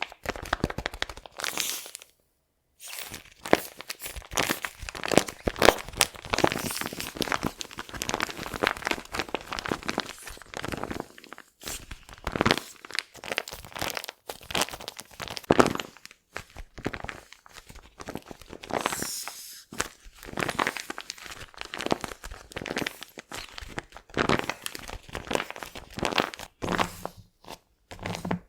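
Paper crinkling and crunching in dense, irregular crackles as it is handled, with a brief pause about two seconds in.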